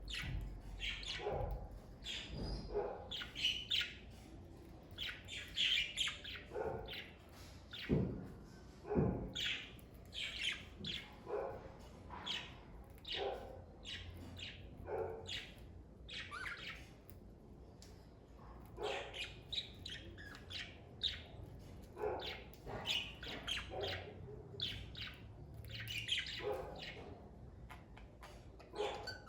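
Pet budgerigars chirping and chattering in a continuous run of short chirps and squawks. Two thumps stand out about eight and nine seconds in.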